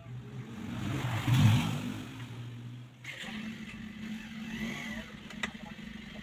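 Electric ceiling fan motor humming steadily, with a louder noisy swell about a second and a half in; about three seconds in the hum shifts abruptly to a higher steady pitch.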